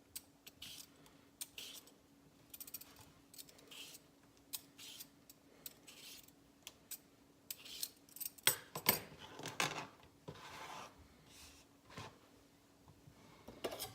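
Cucumber being peeled with a blade: a series of short, irregular scraping strokes along the skin, with a busier run of strokes about two-thirds of the way through.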